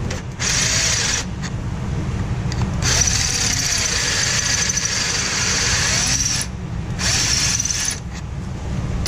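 Handheld power drill boring through an aluminium shifter bracket held in a bench vise, opening a bolt hole out to a larger size. The drill runs steadily, easing off briefly a few times.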